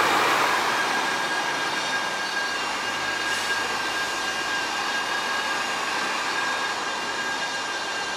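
Steady city traffic noise with a thin, steady high whine running through it. A louder passing vehicle fades away over the first second or two.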